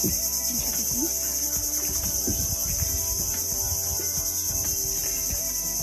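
Steady, high-pitched chorus of insects, with faint low knocks underneath.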